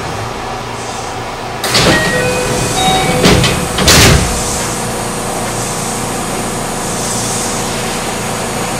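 Passenger doors of a JR West 207 series commuter train opening at a station stop. A sudden rush of noise comes about one and a half seconds in, with a few short tones, then two loud clunks as the door leaves slide open. The stopped train's steady hum follows.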